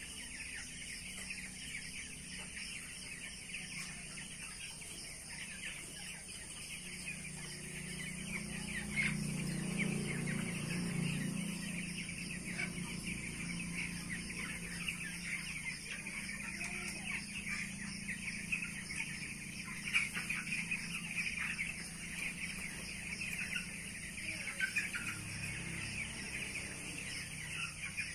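A flock of two-week-old broiler chicks peeping continuously, many short high chirps overlapping. A low hum swells in the background about eight to twelve seconds in.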